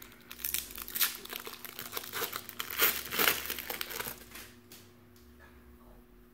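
The shiny foil wrapper of a Fleer Ultra basketball-card pack being torn open and crinkled in the hands, crackling for about four seconds, then dying down as the cards are drawn out.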